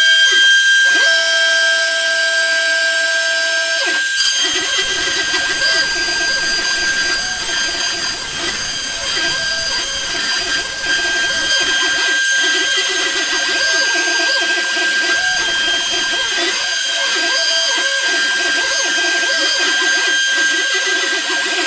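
DIY CNC router's spindle running with a steady high whine while the bit cuts plywood. The cutting noise rises and falls as the machine moves. About four seconds in, a set of lower steady motor tones stops and the rougher cutting sound takes over.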